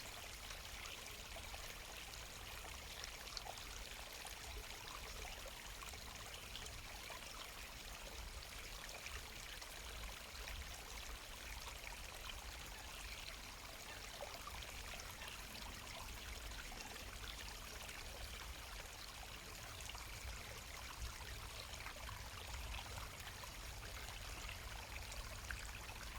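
Faint, steady trickling water with a low rumble underneath.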